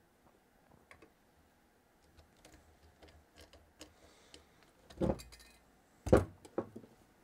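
Small metallic clicks and taps of a flat-blade screwdriver working the accelerator pump lever screw on an Edelbrock carburetor top, with two louder knocks of metal parts being handled about five and six seconds in.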